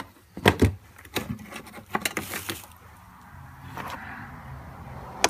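Sharp clicks and rattles of wires and a plastic connector plug being handled, then a faint low steady hum from about three seconds in.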